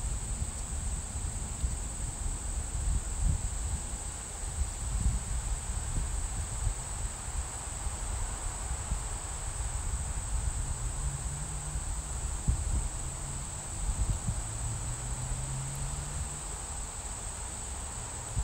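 Summer insect chorus, a steady high-pitched drone with no break, over an uneven low rumble of wind on the microphone.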